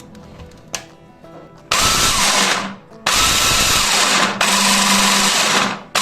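Electric food processor motor run in three short pulses, each a loud whirring whine that winds down in pitch when released: the machine spinning again after its repair.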